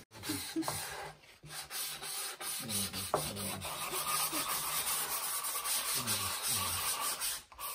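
Two people hand-sanding thin wooden card-case parts on sandpaper: a continuous rasping hiss of quick back-and-forth rubbing strokes.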